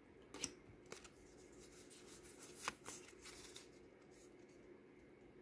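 Pokémon trading cards being slid one by one from the front to the back of a small hand-held stack: a few faint, soft flicks and rustles of card stock, spaced out.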